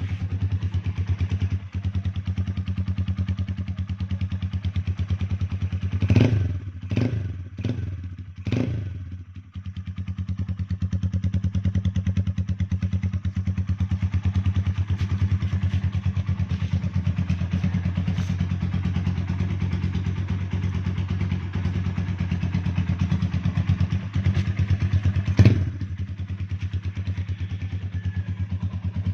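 Sigma 250 motorcycle engine with a modified intake manifold, idling steadily with a fast, even pulse. It takes three quick blips of the throttle about six to nine seconds in and one more sharp blip a few seconds before the end.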